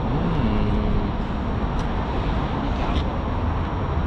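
A steady low rumble of road traffic, with a couple of faint ticks.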